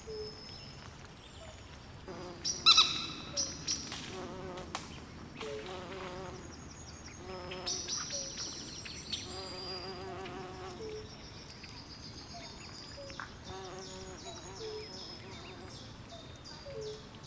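Night swamp chorus of frogs and insects: short, evenly repeated high calls over lower pitched croaking notes, with one louder call about two and a half seconds in.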